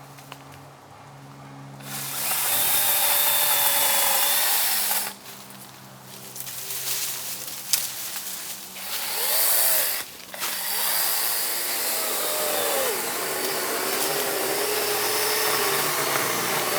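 Kobalt 24-volt battery electric chainsaw cutting into a tree: a low motor hum, then the chain ripping through wood about two seconds in, easing off around five seconds and cutting again from about nine seconds on, with the motor's whine shifting in pitch under load.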